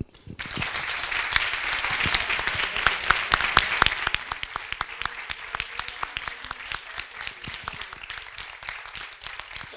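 Audience applauding: a dense round of many hands clapping that sets in just after the start, is loudest over the first few seconds and then thins out.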